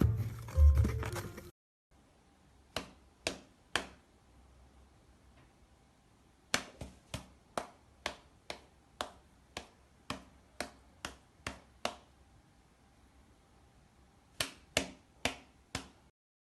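A series of sharp taps in a small room: three about half a second apart, then a run of about a dozen at roughly two a second, then four more near the end.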